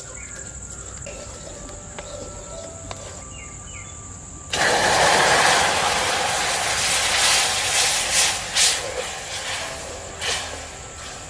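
Water poured from a steel cup onto melted, caramelising sugar in a hot pan over a wood fire: a sudden loud hiss and sputter of steam about four and a half seconds in, fading with crackles. Before it, a ladle scrapes the pan against a steady high insect chirr.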